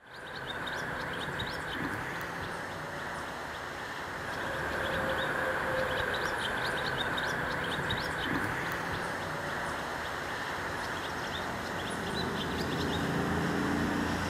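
Small birds chirping in quick, high bursts over a steady hiss of road traffic; a vehicle's engine hum grows louder near the end.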